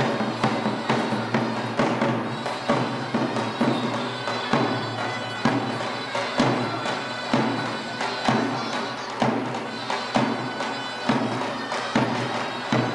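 Live folk dance music: a reedy wind-instrument melody over a held drone, with a drum beat about once a second.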